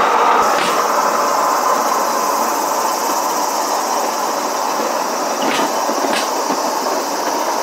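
Rail-cycle wheels rolling on the railway track with a steady rumble, clacking over the rail joints: one clack shortly after the start and a pair half a second apart about six seconds in, the 'gankon gankon' of a train.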